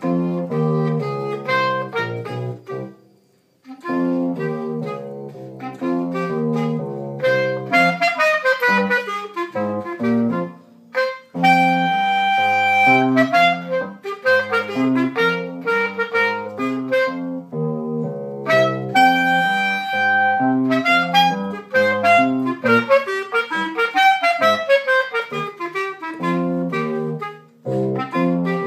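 Clarinet played solo: a lively melody of quick runs and short notes, with a brief pause about three seconds in and two long held high notes near the middle.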